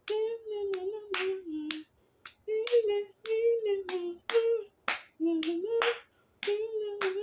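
A voice singing wordless held and gliding notes, with sharp hand claps keeping a beat about twice a second.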